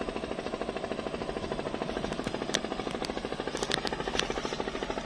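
Steady fast mechanical chugging, about a dozen beats a second, like a small engine running. A few sharp splashes come about two to four seconds in as a hooked tawes (silver barb) thrashes at the surface.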